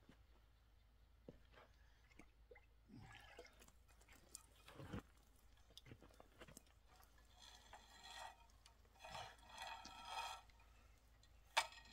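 Faint handling sounds of PEX water line and pump cable being fed hand over hand down a well: scattered light clicks and several short rubs in the second half, with one sharp click near the end.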